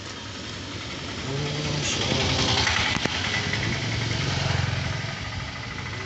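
A three-wheeled auto-rickshaw's engine running as it drives up and past, growing louder about a second in and loudest around two to three seconds in.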